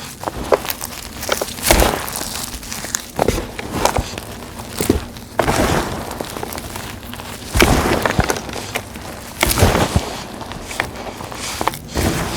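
Blocks of gym chalk set with glitter, dried leaves and dried flowers being crushed by hand: irregular crunching and crumbling, with louder crunches every couple of seconds.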